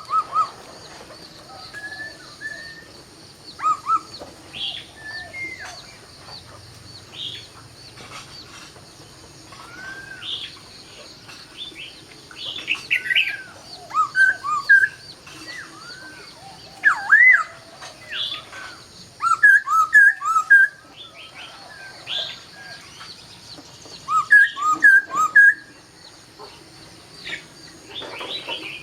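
A laughingthrush (khướu) singing: loud, varied whistled phrases of sliding notes, broken several times by runs of quick repeated notes.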